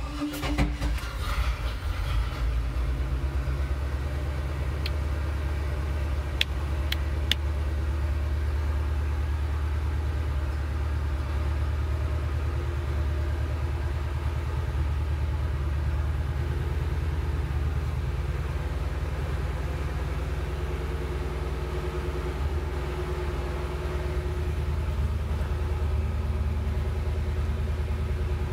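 Motorboat's inboard engine starting and then idling with a steady low rumble. It fires right at the start, with a brief uneven stretch for a second or two before settling.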